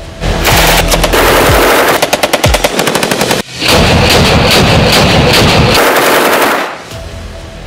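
Sten submachine gun firing 9 mm rounds on full automatic: a burst of about three seconds, a brief break, then a second burst of about three seconds.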